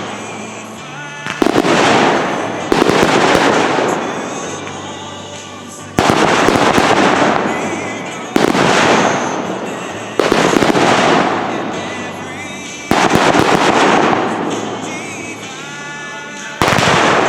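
Aerial fireworks bursting: seven loud booms, one to three seconds apart, each trailing off in a fading crackle.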